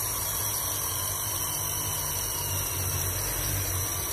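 Makita DA3000R corded angle drill running steadily with no load, its 10 mm keyed chuck spinning freely.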